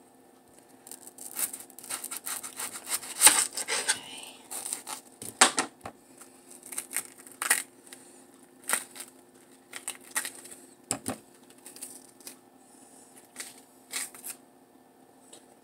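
An onion being peeled and trimmed by hand: irregular crackles, rustles and sharp clicks as the dry papery outer skin and layers are pulled and cut away, over a faint steady hum.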